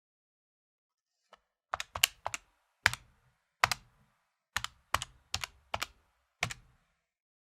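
Keys of an electronic calculator being tapped: a run of about a dozen sharp plastic clicks at an uneven pace, some in quick pairs, starting after a second and a half of quiet.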